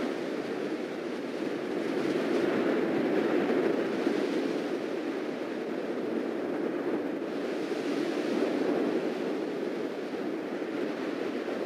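Steady rushing roar of an active lava lake, like surf, swelling a little a few seconds in and again later.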